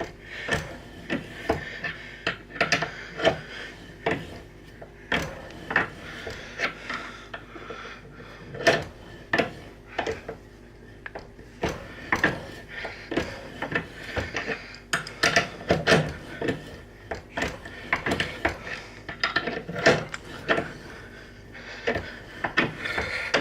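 Irregular clinks, knocks and scrapes of metal hand tools and parts being handled and set down on a workbench, some strikes ringing briefly.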